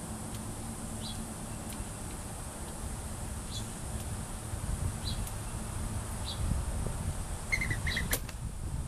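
Small bird chirping: short high calls spaced a second or more apart, then a quick run of lower chirps and a sharp click near the end, over a low wind rumble and a steady high hiss.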